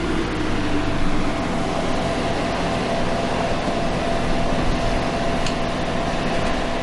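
An SUV's engine running steadily as the vehicle drives up and idles: an even mechanical hum.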